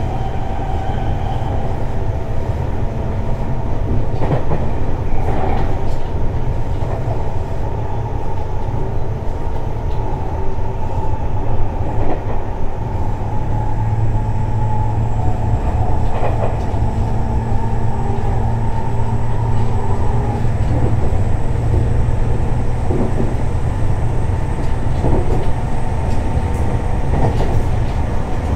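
Running sound of a Tobu 60000 series electric train travelling at speed: a steady low rumble of wheels on rail, broken by occasional rail-joint clacks. A faint high steady tone comes in about halfway through.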